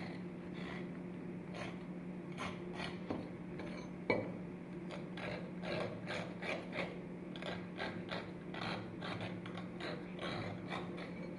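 Irregular short scrapes and clicks of a rusty metal tool being worked by hand, with one sharper click about four seconds in, over a steady low hum.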